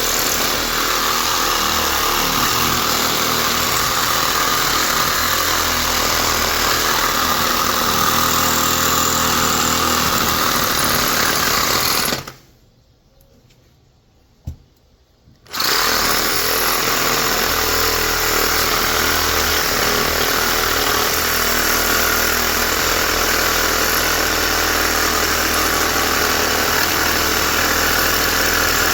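Reciprocating saw (Sawzall) cutting through a large electric motor's steel and copper. It runs steadily, stops for about three seconds a little before the middle, with a single knock in the gap, then starts cutting again.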